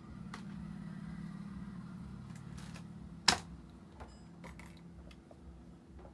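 Small hard clicks and taps of tools and phone parts being handled on a repair bench, with one sharp click about three seconds in, over a low steady hum.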